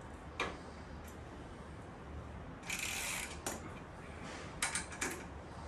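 Ratchet wrench clicking while tightening a bolt on a motorcycle slip-on exhaust: a single click, a short quick run of clicks about three seconds in, then a few more clicks near the end.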